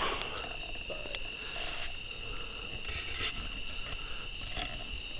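Steady high-pitched chorus of night insects, one even tone with a fainter one above it, under a few faint soft rustles.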